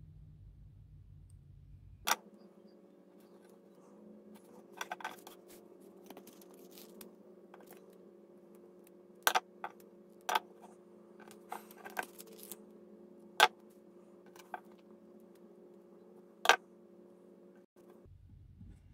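Scattered sharp clicks and taps of planner pages and sticker sheets being handled on a desk, irregular and about a dozen in all. Under them runs a steady low hum that starts about two seconds in and stops abruptly shortly before the end.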